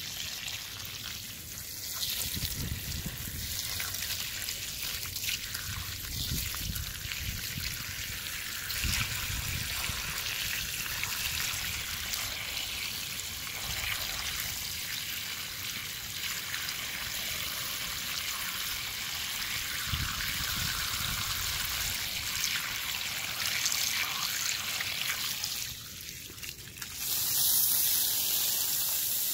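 Running water from a steady stream splashing over a crystal held in the hand, a continuous trickling, splashing hiss as the rock is rinsed clean of soil. Near the end it drops away for a moment, then comes back louder and hissier as the stream sprays onto the grass and soil.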